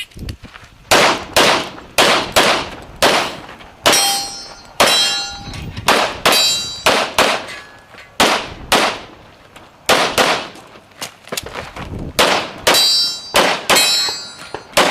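A string of about two dozen pistol shots fired in quick pairs and runs through a USPSA action-pistol stage. Several shots are followed by a brief metallic ring from steel targets being hit.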